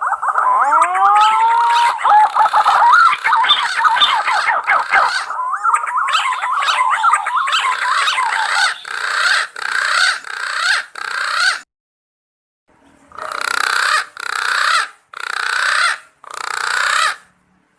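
Green pigeons (punai) calling: a run of overlapping warbling, gliding whistles that breaks up into separate notes, a short pause about twelve seconds in, then four drawn-out notes near the end.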